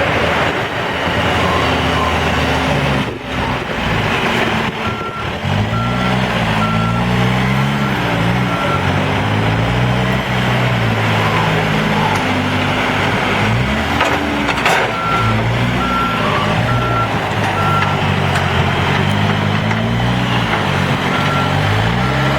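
Case 590 Super N backhoe loader's diesel engine revving up and down again and again as the machine works, with a reversing alarm beeping steadily in three spells: from about five seconds in, midway, and near the end.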